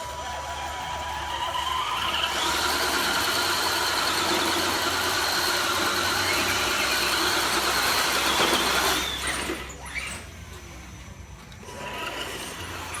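The electric motors and geartrains of two RC crawler trucks whine steadily under load as they pull against each other. The high, steady whine swells about two seconds in and cuts off about nine seconds in.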